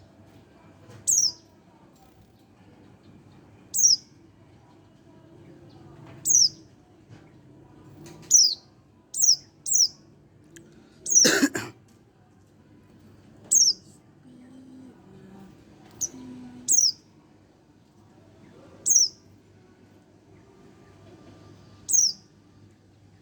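A young white-eye (pleci), about a month old, giving a dozen or so single short high calls, each dropping in pitch, spaced a second to a few seconds apart. Near the middle comes one louder, fuller sound that reaches much lower in pitch.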